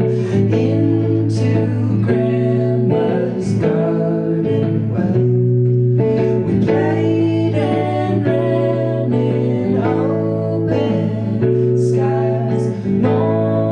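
A folk song played live: an electric guitar is strummed while a man and a woman sing together.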